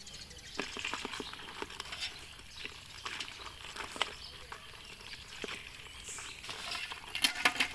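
Hands rummaging through wet weeds and grit in a metal pot, with scattered small clicks and knocks as eels and crabs are picked out; a quick run of sharp clicks comes near the end.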